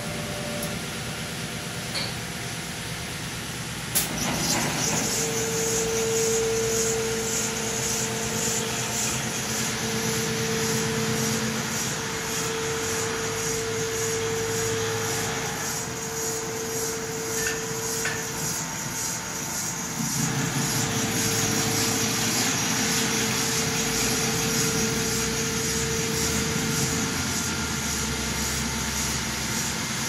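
ROBO-1 automatic stone-polishing machine running, its spinning abrasive pad grinding across wet Takine granite slabs with a steady hiss and hum. A single sharp knock sounds about four seconds in.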